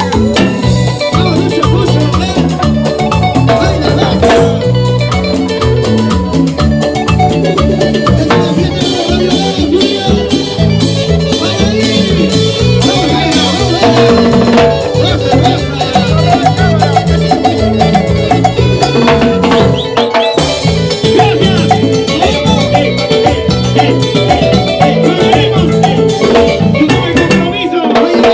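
Live band music with a steady beat and busy percussion.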